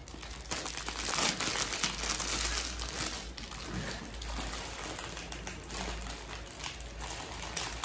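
Crinkling and rustling of something being handled close to the microphone, irregular throughout and loudest about a second in.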